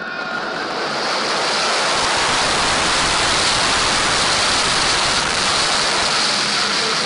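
Loud, steady rushing of wind over a fast-moving roller coaster car, air blasting across the microphone. It builds over about the first second, then holds.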